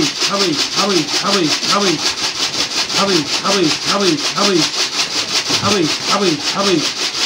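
Homing pigeons cooing: low calls that each rise and fall, repeated about two to three times a second in runs of three to five with short pauses between. Under them runs a steady, fast-pulsing high hiss.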